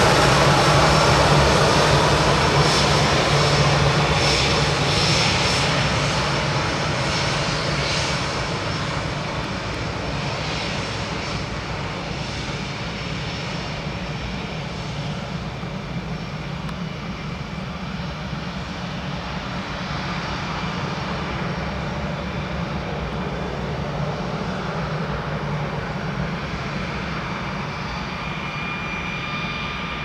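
Airbus A319 jet engines running at low taxi power as the airliner rolls on the runway. Loudest at first and easing off over the first ten seconds, then a steady hum, with a thin high whine coming in near the end.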